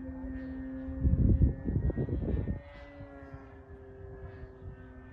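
Electric motor and propeller of a Carbon-Z Cessna 150 RC plane whining steadily in flight. A loud rush of wind-like noise comes about a second in and lasts a second and a half. After that the whine settles slightly lower, and it drops in pitch as the throttle comes back near the end.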